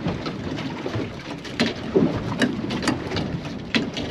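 Waves slapping and splashing against a small boat's hull at irregular intervals, over steady wind noise on the microphone.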